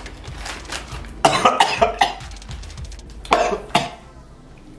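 A man coughing and choking after inhaling a piece of a crunchy snack: a rapid run of several sharp coughs about a second in, then two more coughs a little over a second later.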